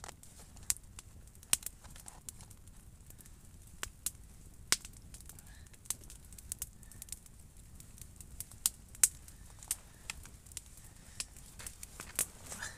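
Irregular sharp crackles and clicks, about two a second and uneven in loudness, over a faint low background hiss.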